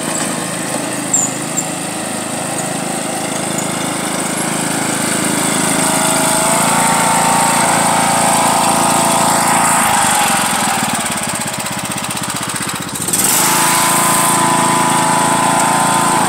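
John Deere LA105 riding lawn mower engine running under load as it tows a rider on a sled. The engine note rises about six seconds in, drops back somewhat, then comes up suddenly again about thirteen seconds in.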